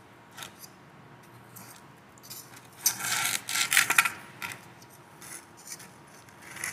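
A knife scraping around the inside of a metal cake tin, against the baking-paper lining, to loosen a baked cake. It comes as short scratchy strokes, loudest and busiest for about a second in the middle.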